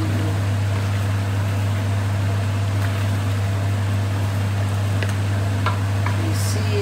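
Chicken and vegetables simmering in a steel wok over a steady low hum, with a few light clicks of a wooden spatula and chopsticks against the pan as they are stirred.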